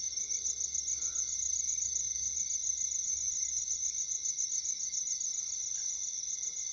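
Chorus of night crickets: several steady, high-pitched trills at different pitches, each pulsing rapidly without a break.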